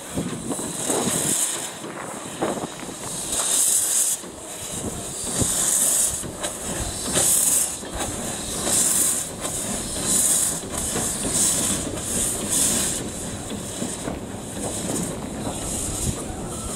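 English-built steam motor coach 'The Coffee Pot' (SMC1) chuffing as it moves off, its exhaust beats coming closer together as it gathers speed, with knocks of wheels over the rail joints.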